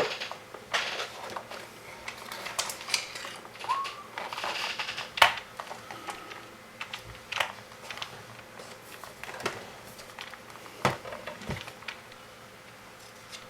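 Irregular small clicks and taps of plastic parts and jumper wires being handled and fitted on a robot build, the sharpest click about five seconds in, with a brief squeak near four seconds in.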